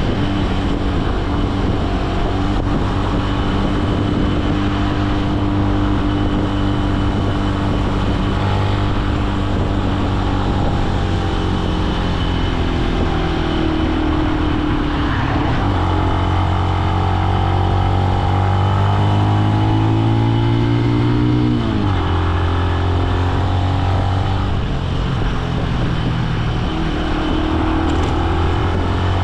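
Benelli BN125 single-cylinder 125 cc four-stroke engine running while riding, its pitch sinking a little, then climbing steadily for about six seconds under acceleration, dropping abruptly about two-thirds of the way through, and climbing again near the end.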